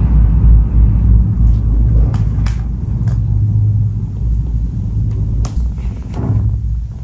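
Cat purring, a loud low steady rumble, with a few light clicks and taps over it.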